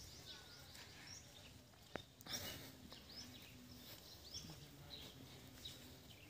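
Near silence, with faint bird chirps now and then and a brief soft knock about two seconds in.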